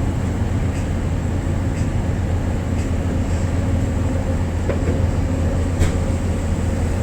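A boat's engine running with a steady low drone, with faint ticks about once a second.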